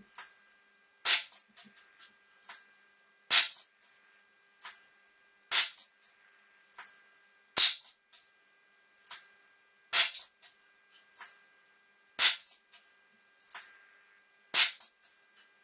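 Diana LP8 Magnum spring-piston air pistol firing .177 pellets: seven sharp shots about two seconds apart, each followed about a second later by a quieter click.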